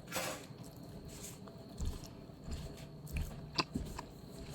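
A person eating close to the microphone: chewing and biting on food, with a few soft low thumps and a sharp click about three and a half seconds in.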